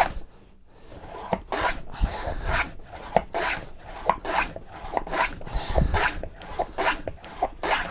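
Stanley 45 combination plane ploughing a groove in a wooden board, rasping in short, quick strokes about two or three a second after a brief pause about a second in. Some strokes carry a dull thud.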